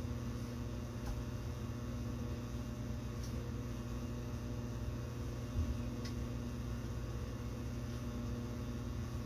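Steady low electrical hum of kitchen room tone, with a few faint clicks and a soft knock as kitchen items are handled at the counter and sink.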